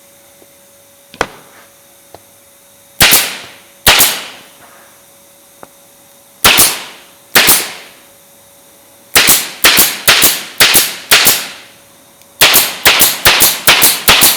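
Staple gun firing staples into glued MDF strips: sharp shots, two pairs and then two quick runs of about five, each shot followed by a short fading tail.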